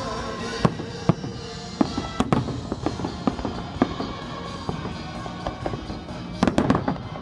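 Fireworks display: aerial shells bursting in a string of sharp bangs and crackles, with a dense cluster of bangs near the end, over steady music.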